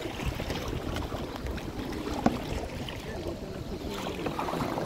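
Wind buffeting the microphone over the splash of kayak paddle strokes in the water, with one sharp knock a little over two seconds in.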